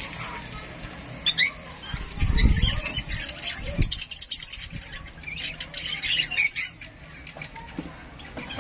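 Parrot chick begging for food at a feeding spoon, giving high squawking calls in several bursts, including a fast stuttering run about four seconds in. A low rumble sounds briefly about two seconds in.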